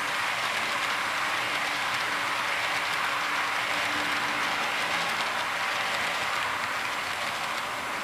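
HO scale hopper cars rolling past on the track, a steady rolling noise of small metal wheels on the rails that eases slightly near the end as the last car goes by.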